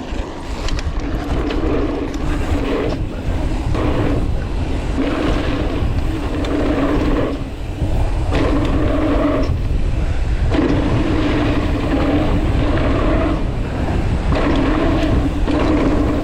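A mountain bike run down a jump trail, with a constant loud rush of wind on the microphone and tyres on dirt. A humming tone comes and goes every second or two.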